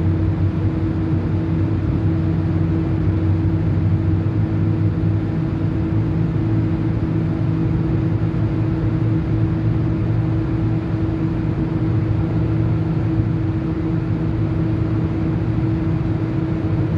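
Steady low drone of a ship's engines and machinery: a few constant hum tones over an even rushing noise, with no change in speed or load.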